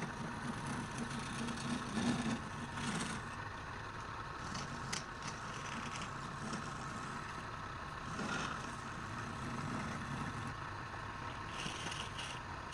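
Wood lathe running steadily, with a turning tool scraping against the spinning wood now and then.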